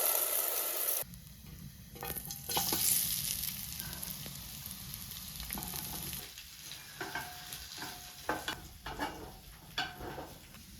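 Food sizzling while being cooked. About a second in it cuts suddenly to a quieter sizzle, with a utensil stirring and several sharp clinks against the pot or pan.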